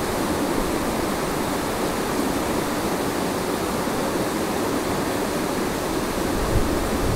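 Steady rush of river water pouring through rocky rapids into a pool.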